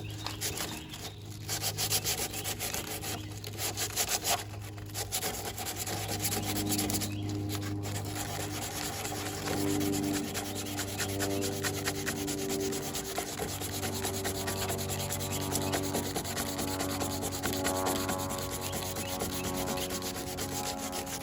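Sandpaper being worked by hand over cured body filler (Bondo) on a car body panel: a steady scratchy rubbing in repeated strokes. There are brief pauses in the first several seconds, then it runs without a break.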